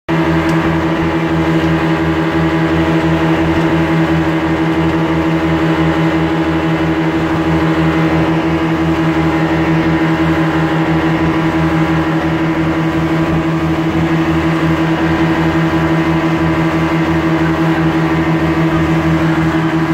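Motorboat engine running steadily at cruising speed, a loud, unchanging drone with a pulsing low throb underneath.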